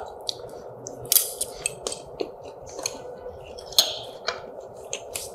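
Metal spoon and fork clicking and scraping against a plate as food is cut and scooped, a dozen or so sharp, irregular clicks, with chewing in between.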